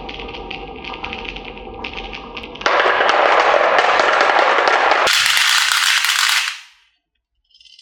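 Marbles clattering and rattling down a wooden HABA marble track, a dense stream of rapid clicks. It gets much louder about two and a half seconds in, turns brighter a couple of seconds later, then dies away to silence near the end.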